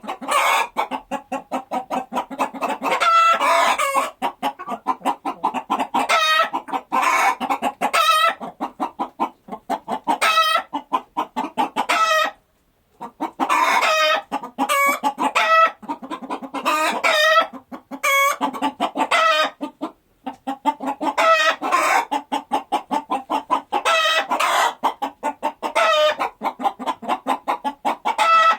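Chickens clucking in quick, continuous runs of short calls, with two brief pauses.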